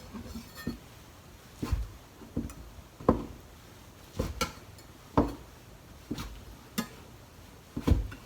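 Kitchen knife knocking on a cutting board about ten times at an uneven pace, cutting shiitake mushrooms into quarters.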